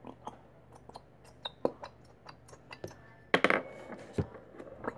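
Light plastic clicks and taps from a plastic squeeze bottle being handled and squeezed over a plastic cup, with a short, louder burst of crackling about three and a half seconds in and a sharp tap soon after.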